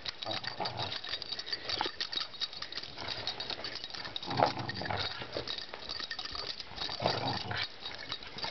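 Dog growling in short bouts while playing tug-of-war with a fabric toy, the loudest growl about four seconds in and another near the end, over a constant light clicking.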